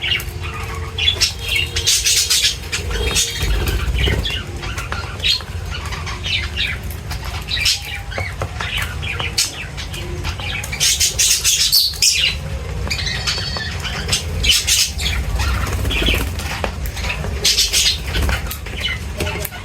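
A mixed flock of budgies and lovebirds chirping and squawking in quick, overlapping calls, busier at times, over a steady low rumble.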